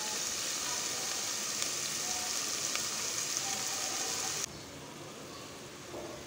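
Food sizzling in hot oil, a steady hiss with scattered sharp crackles. It drops suddenly to a quieter sizzle about four and a half seconds in.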